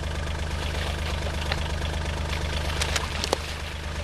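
A vehicle's engine idling steadily, with a few short clicks in the second half.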